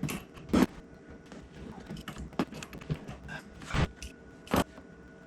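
A few sharp knocks and clanks of tools and fittings being handled while the water supply hose comes off the dishwasher, the loudest about half a second in and twice near the end.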